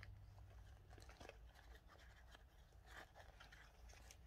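Faint rustling and light scratching of fabric and paper being handled during hand beading, with the needle and thread passing through, as scattered soft ticks over a low hum.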